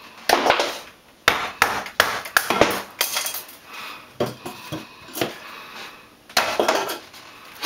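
Hammer blows and debris breaking away as a kitchen soffit is knocked down: irregular sharp knocks and crashes, several in quick succession in the first three seconds and another cluster near the end.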